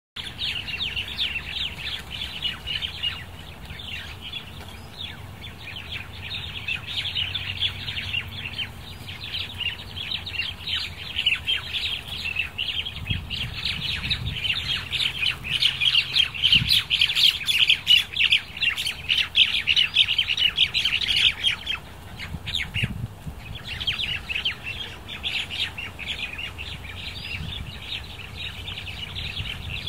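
A flock of crested mynas chattering: a dense, unbroken mass of overlapping chirps and squawks. It swells to its loudest a little past the middle and briefly falls away about three-quarters of the way through before picking up again.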